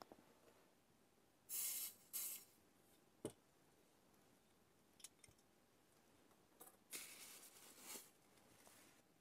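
Faint handling noises on a work surface: two short rustles, a sharp click a moment later, a few small ticks, and a longer rustle near the end.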